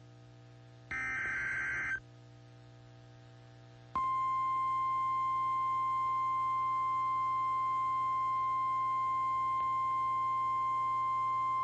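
NOAA Weather Radio alert tones: a second-long screeching SAME digital header burst, then about two seconds later the steady 1050 Hz warning alarm tone starts and holds. Together they announce a new warning broadcast.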